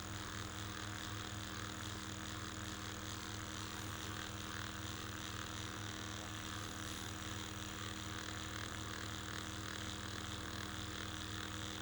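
Handheld vibration device buzzing steadily against the muscles of the jaw and mouth: a low, even hum with a slight regular pulse.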